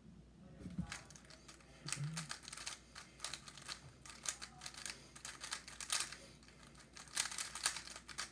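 Weilong WR M V10 magnetic speedcube being turned rapidly during a solve: a fast, irregular clatter of plastic clicks that thickens from about two seconds in.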